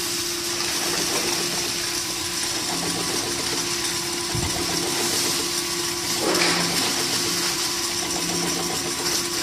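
Powder mixing and auger filling machinery running steadily: a constant motor hum over a noisy whir, with a faint pulsing about every second and a half and a brief louder rush about six seconds in.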